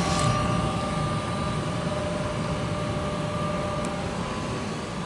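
Gas furnace running with its burners lit: a steady rushing noise of flame and air, with several steady humming tones over it.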